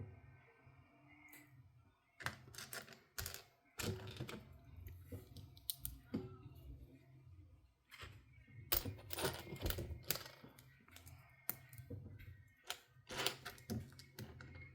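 Plastic Lego pieces clicking and rattling as they are handled, sorted and pressed together, in irregular bursts of small clicks.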